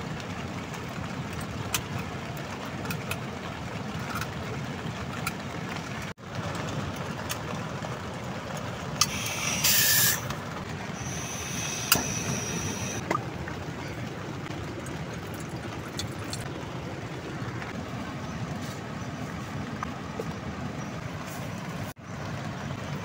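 Portable butane camping stove being set up and lit: a loud burst of gas hiss about nine seconds in as the canister is fitted, then a thinner high hiss of escaping gas for about two seconds, with a sharp click of the igniter near its end. Under it all runs a steady rushing noise.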